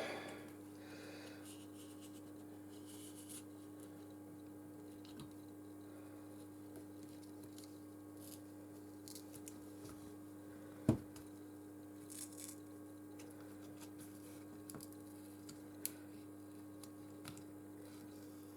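Faint scraping and small clicks of a tool prying at the glued strip on the back of a smartphone, with one sharper tap about eleven seconds in, over a steady low hum.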